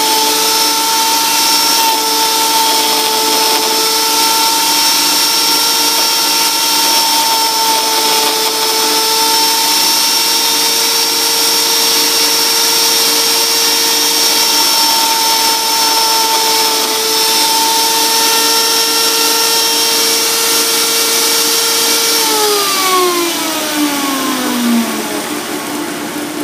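Electric power tool running at a steady speed with a high whine, then switched off near the end, its pitch falling over a few seconds as it winds down.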